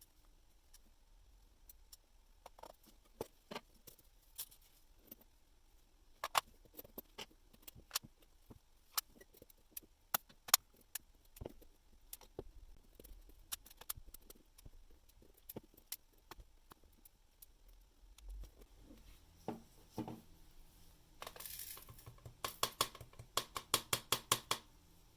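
Faint, scattered clicks and taps of small metal watch parts and tools handled on a work surface, with a quicker run of regular clicks and a short rustle near the end.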